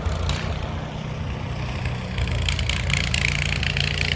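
Low wind rumble on the microphone. About two seconds in, a dense, gritty crackling of many small crunches joins it.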